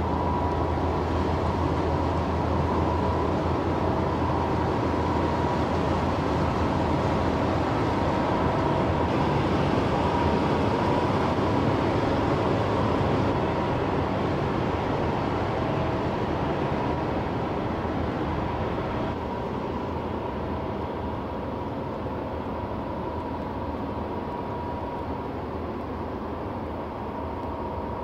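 A passing bulk cargo ship's engine and propeller running: a steady, loud drone with a faint high whine, getting a little quieter in the second half as the stern moves off.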